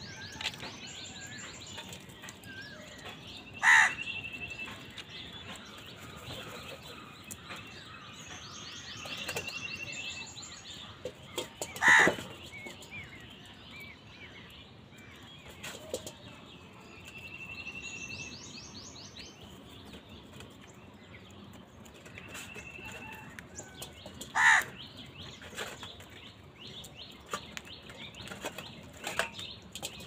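House crows calling: three loud single caws spaced several seconds apart. Between them comes softer, repeated high chirping and trilling from other birds.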